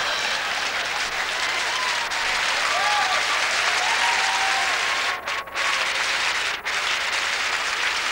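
Theatre audience applauding after a punchline, with a few voices calling out over the clapping. The sound drops out for an instant about three times a little past the middle, like tape dropouts on an old VHS recording.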